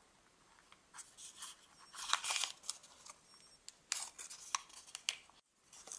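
Origami paper crinkling and rustling as fingers press and shape its folds: a run of short, dry crackles.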